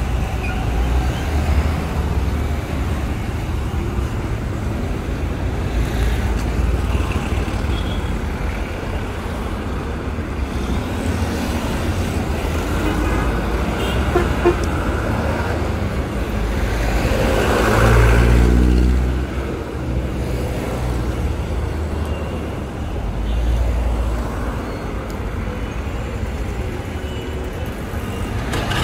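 Road traffic on a busy town street: a steady rumble of engines and tyres. About eighteen seconds in, one vehicle passes close and loud, its engine pitch falling as it goes by.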